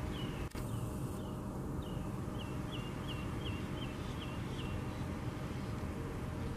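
A small songbird in the background repeating a short downslurred whistled note, a few faint notes at first, then a quick run of about eight at roughly three a second, over a steady low rumble.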